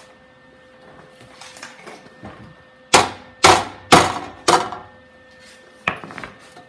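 Hammer blows on a VW Super Beetle's freshly tack-welded steel inner wheel-well panel, bashing it into place: four sharp strikes about half a second apart, then a lighter knock near the end.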